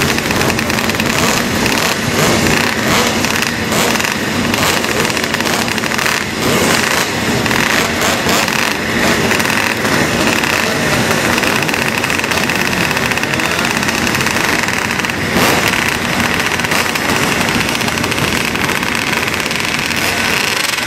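Several racing motorcycle engines running and revving together at a starting line, loud and continuous.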